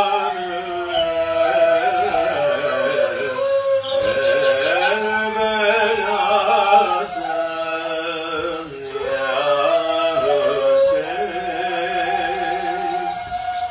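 A solo voice singing a slow, heavily ornamented melody, holding long wavering notes, with brief breaths a few seconds in and again about halfway through.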